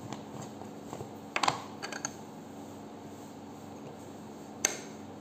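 Light clicks and knocks of a mayonnaise jar being handled and tipped over a bowl, a small cluster about a second and a half in and a single sharp tap near the end, over a faint steady hum.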